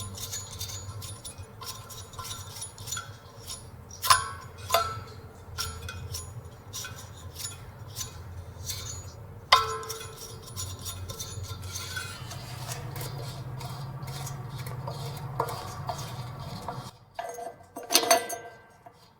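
Metal clinks and knocks from handling the valve of a propane gas cylinder, several strikes ringing briefly. A low steady hum lies underneath and cuts off suddenly near the end.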